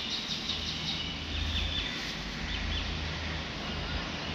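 Birds chirping: quick runs of short, high calls in the first two and a half seconds, over a steady low rumble.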